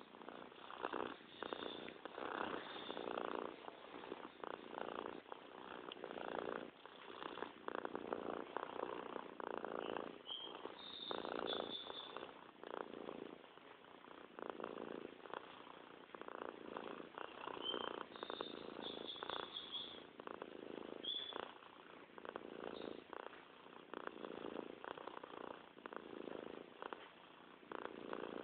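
An animal making a continuous, rapid pulsing rumble close to the microphone that swells and eases every second or two, as with each breath. A few short high tones sound twice, near the middle.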